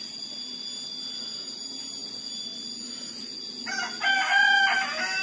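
A rooster crowing once, starting past the middle, a broken cock-a-doodle-doo that falls away at the end, over a steady high-pitched hum.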